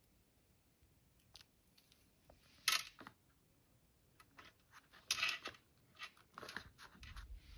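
A die-cut paper snowflake handled and pressed down with the fingers: quiet, separate rustles and taps of thin card, the sharpest about two and a half seconds in.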